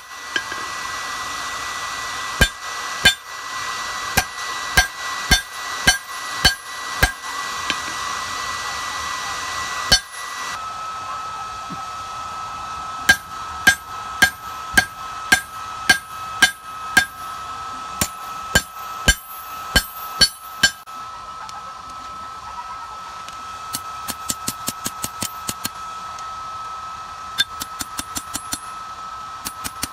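Hammer blows on an anvil while forging steel, each with a short metallic ring. They come one or two a second with pauses, then in quick runs of light taps near the end, over a steady hiss with a thin tone that drops in pitch about ten seconds in.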